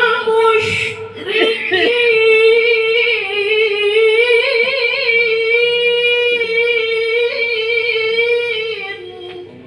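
A Quran reciter's voice chanting one long melodic phrase in tajwid style, high-pitched and held with wavering ornaments. A brief hissing consonant comes near the start, and the voice tapers off near the end.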